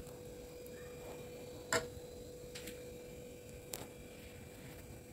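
Faint steady hum with a few short clicks, the loudest just under two seconds in.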